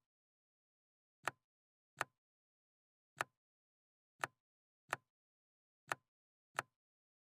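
Jigsaw puzzle pieces clicking into place: seven short, sharp, identical clicks at uneven intervals of roughly a second, with dead silence between them.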